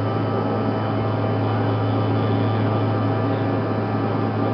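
Steady cabin noise of a Bombardier CRJ-200 in flight: a loud, constant low hum with a rush of air and several steady whining tones above it, from the rear-mounted CF34 turbofan engines.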